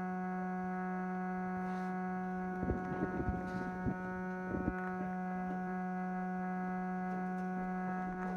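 Steady electrical hum with a stack of overtones, with a few scattered short knocks and shuffles a few seconds in.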